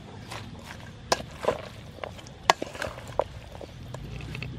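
Wooden spoon tossing a sea snail and mango salad in a stainless steel bowl: a handful of sharp, irregular knocks and clicks as the spoon strikes the bowl and the snail shells knock together.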